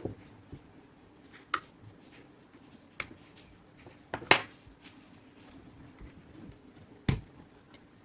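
Hands and tools working on a portable Bluetooth speaker being taken apart: a handful of separate sharp clicks and knocks, the loudest about four seconds in, over a faint steady hum.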